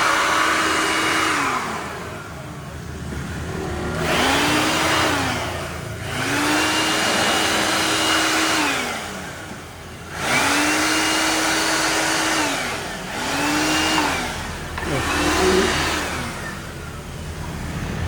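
Electric air blower switched on and off in about six bursts, each one spinning up to a steady high whine with a rush of air and then winding down. It is blowing dust and water out of the inside of a window-type air conditioner being cleaned.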